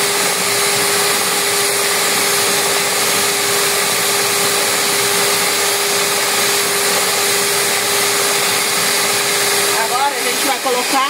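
Mondial Prática 400W stand mixer running at a steady speed, its beaters whirring through a liquid egg batter, with a constant motor whine.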